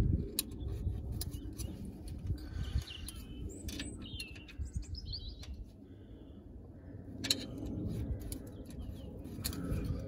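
Small birds chirping in the background, a run of quick calls between about two and five seconds in, over a low rumble and scattered light metallic clicks and taps of hand tools on the valve gear of a BMW M10 cylinder head.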